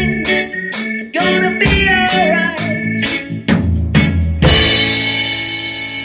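Acoustic drum kit played along to a reggae backing track with organ, hits falling about twice a second. About four and a half seconds in it ends on a final crash cymbal hit that rings out and fades together with the track's last held chord.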